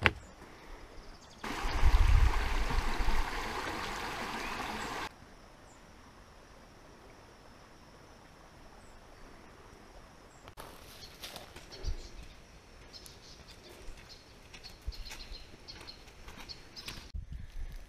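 Footsteps on a dirt trail with faint bird chirps, and a few seconds of loud rushing noise near the start that starts and stops abruptly.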